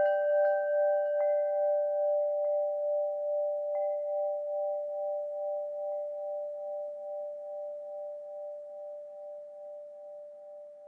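Wind chimes ringing out: a few light taps in the first four seconds, then two low tones hang on with a slight pulsing and slowly fade away.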